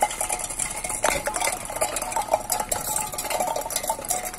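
Wheelbarrow clattering and clinking as it is pushed over a rough dirt path, a steady stream of irregular metallic rattles.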